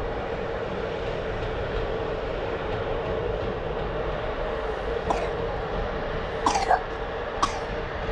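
Steady hum of an electric train locomotive standing in the station, with three brief higher-pitched sounds about five, six and a half and seven and a half seconds in, the middle one the loudest.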